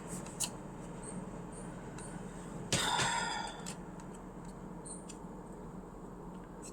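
Faint handling noise while the inside of a laptop is being cleaned: a few light clicks near the start, and a brief rustling scrape about three seconds in.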